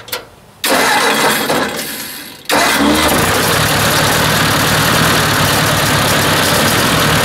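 Ford 800 tractor's four-cylinder engine turned over for about two seconds, then catching and running loud and steady from about two and a half seconds in. It is running rough and missing, which the owner suspects comes from the ignition points.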